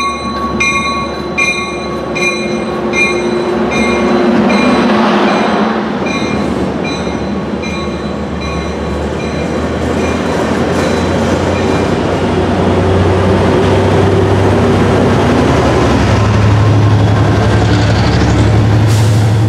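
Trinity Railway Express bilevel commuter train pulling out past the platform, its cars rumbling by. A locomotive bell rings about once every 0.7 s and fades out in the first few seconds. A low diesel engine drone grows louder in the second half.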